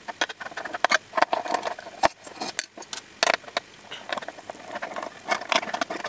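A small screwdriver removing the bottom-panel screws from a mini PC's case, played back at four times speed: a rapid, irregular run of clicks and scrapes.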